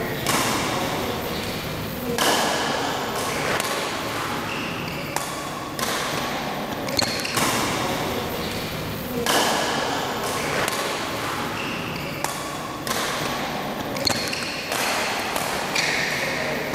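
Badminton rally in a large echoing hall: rackets strike the shuttlecock every second or two, with short high squeaks from shoes on the court mat between shots.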